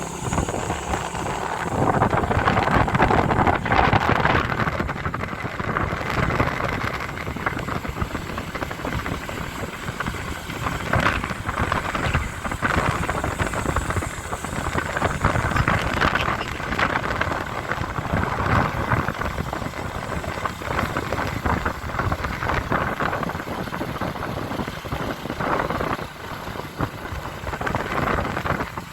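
Motorcycle riding noise: wind buffeting the microphone over the engine and road noise, rising and falling in gusts.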